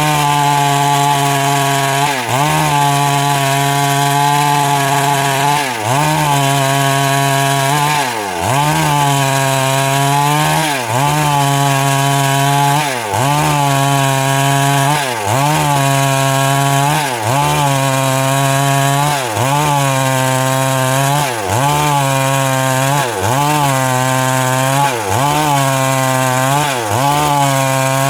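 Stihl MS 382 two-stroke chainsaw cutting wood at high revs, its engine pitch sagging under load and picking back up roughly once a second in a steady rhythm as the chain is pushed into the cut.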